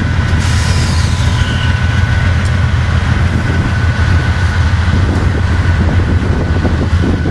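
Norfolk Southern diesel locomotives running as they roll toward the listener, a deep steady engine rumble with a thin steady high tone over it. A brief falling whine sounds about a second in.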